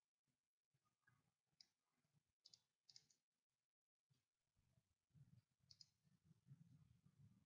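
Near silence with a few faint, sharp computer mouse clicks, two of them close together about three seconds in; a faint low hum comes in about five seconds in.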